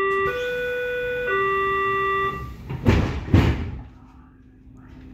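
Berlin S-Bahn class 482 train's door-closing warning signal: three steady electronic tones, low, high, low, each about a second long. About three seconds in come two loud thuds a half-second apart as the sliding doors shut.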